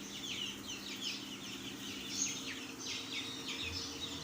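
A brood of young chicks peeping continuously, many short, falling peeps overlapping one another, over a steady low hum.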